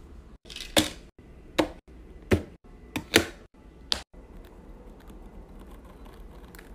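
Diamond painting drill pen tapping resin drills onto the sticky canvas: six sharp clicks in the first four seconds, then only faint light ticks.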